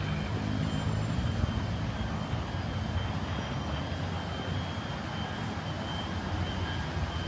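Steady city street-traffic noise: a continuous low rumble of vehicle engines under a wash of road noise.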